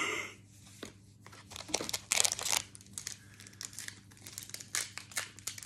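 Foil Pokémon booster-pack wrapper crinkling and tearing as a pack is opened and its cards handled: a run of short, irregular rustles, loudest about two seconds in.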